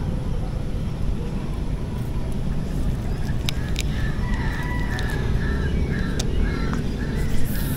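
A bird calling a run of short repeated notes, about two a second, starting a few seconds in, over a steady low rumble.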